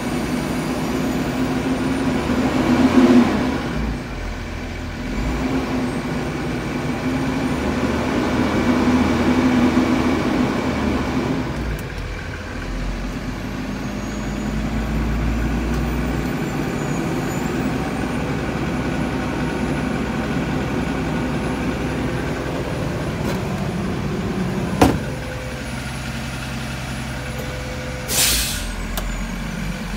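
School bus engine idling with its cooling fan running, a loud rushing that swells and eases over the engine's steady hum. About 25 s in a sharp click is followed by a drop in level. Near the end comes a brief hiss of air from the bus's air system.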